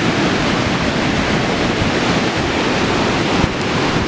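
Purgatoire River running high in flood, a steady loud rush of whitewater rapids, swollen by water released from the dam upstream.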